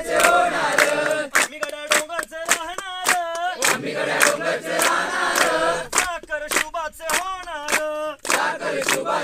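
A group of people singing together in unison, keeping time with rhythmic hand clapping.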